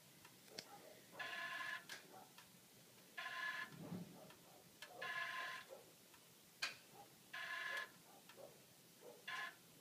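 A 2008 Toyota Aurion ZR6 making a short, pitched whine from underneath the boot. The whine repeats about every two seconds, with faint clicks between the whines. The owner suspects the fuel pump.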